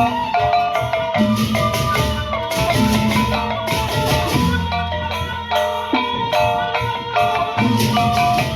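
Gendang beleq ensemble, the Sasak drum-and-gong orchestra of Lombok, playing its opening piece: a quick melody of short pitched metal notes over drums and deep held gong tones.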